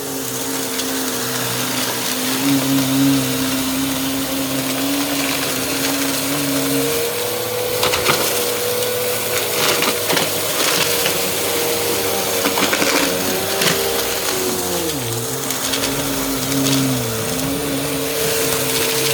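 Bissell CleanView upright vacuum cleaner running, its motor giving a steady hum that shifts in pitch a few times as it is pushed through long passes. Its pitch sags briefly twice near the end, and there are scattered crackles in the middle.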